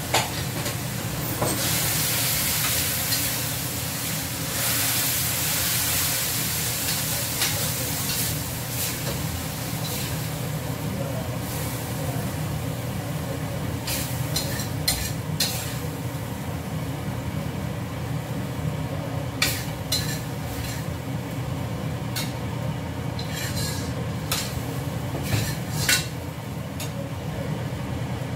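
Vegetables stir-frying in a steel wok over a gas flame. The food sizzles, loudest in the first several seconds, while a metal spatula scrapes and clanks against the wok, over a steady low hum.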